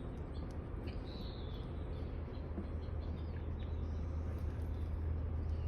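Faint bird chirps over a steady low background hum.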